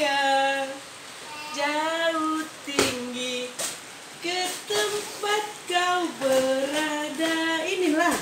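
A woman singing a slow children's tune in held, gliding notes, phrase by phrase with short pauses, with two short knocks about three seconds in.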